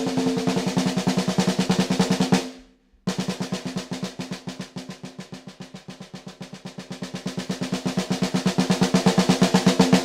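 13-inch Pearl Rhythm Traveler snare drum with an Evans Genera Dry coated batter head, played in fast, even rolls with the head ringing under the strokes. One roll stops about two and a half seconds in. After a short break a new roll starts, fades down, then swells steadily louder.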